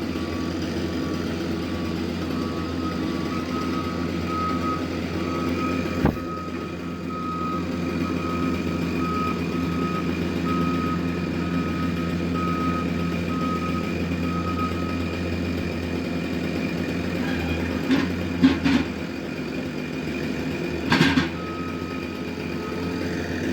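A truck's reversing alarm beeping in a steady repeating pattern over its running engine; the beeps stop a little past halfway and start again near the end, and a few sharp knocks come in between.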